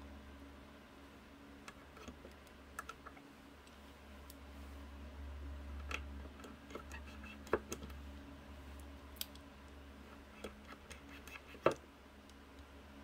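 Scattered, irregular small clicks and taps of a hand blade trimming a small piece of leather, over a steady low hum.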